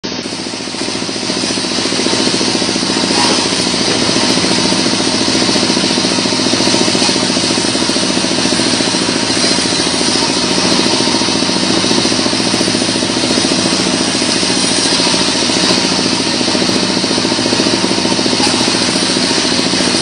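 Vertical band saw running and ripping lengthwise through a log, a loud, steady mechanical noise of blade and drive that builds over the first couple of seconds and then holds even.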